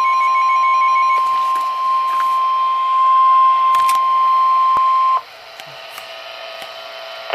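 Emergency Alert System warning alarm tone of the kind NOAA Weather Radio sends at 1050 Hz: one loud, steady, unbroken beep announcing a weather warning. It cuts off suddenly about five seconds in, leaving a much quieter radio hiss.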